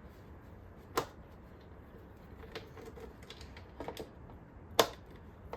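Sharp clicks and light taps of small screws and tools being handled: one click about a second in, a few soft taps in the middle, and a louder click near the end.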